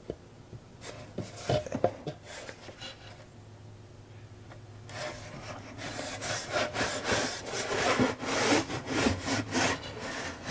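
A 3/8-inch-thick wooden side panel with a V-shaped edge being worked into a matching V slot in a dry fit, wood rubbing and scraping against wood. A few sharp knocks come about one and a half seconds in, and from about halfway there is a dense run of short scraping strokes as the panel slides home.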